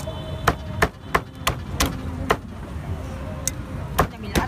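A heavy meat cleaver chopping roast duck on a thick round wooden chopping block. About eight sharp chops come in quick, uneven succession, with a pause of over a second in the middle before two more.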